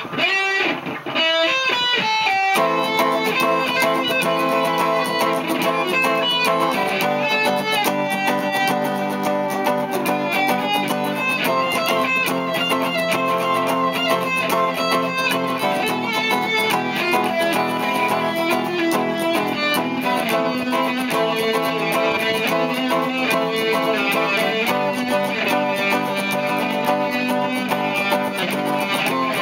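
Electric guitar playing a melody, opening with a few sliding notes; about two and a half seconds in, a dense accompaniment with a fast, even beat starts and runs under the guitar.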